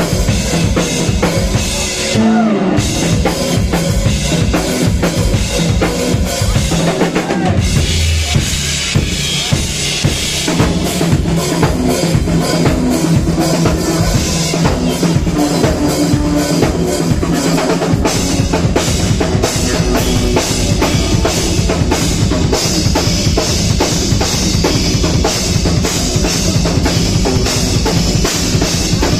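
Live band music led by a drum kit playing a steady beat of kick and snare, with bass and other instruments underneath.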